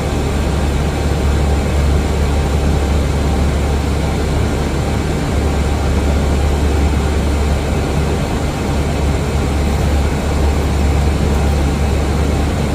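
Steady engine and airflow noise of an Airbus A320 in flight, heard from inside the aircraft: a constant low rumble under an even hiss.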